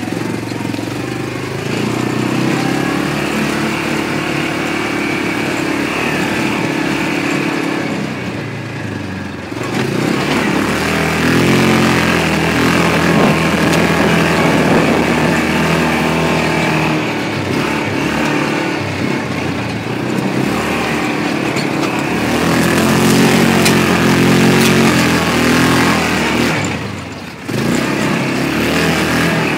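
Yamaha Rhino side-by-side's single-cylinder four-stroke engine running as it drives a rough dirt trail, revving up and easing off with the throttle. It drops off briefly twice, about a third of the way in and near the end.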